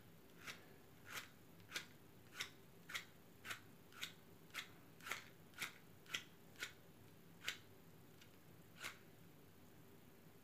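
A wooden match scraped again and again along the striker strip of a small matchbox, about fourteen quick scratches at roughly two a second that slow near the end. The match is failing to catch.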